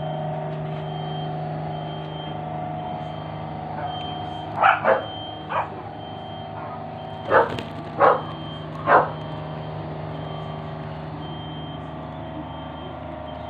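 A dog barking six times in two short groups in the middle, over a steady low mechanical hum and a faint high beep that keeps repeating.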